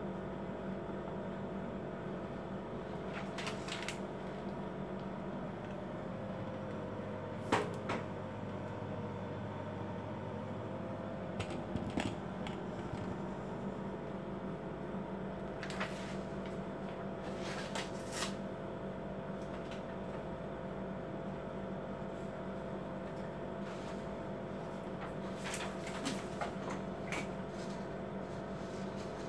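Epson L4160 ink-tank printer's mechanism at work after a button press: a low motor hum runs for about five seconds, starting about six seconds in and ending with a click, with scattered clicks and knocks through the rest.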